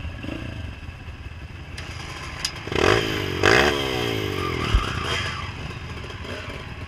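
Dirt bike engines idling, with one engine blipped twice in quick succession about three seconds in, its pitch falling back after each blip. A short low thump comes about five seconds in.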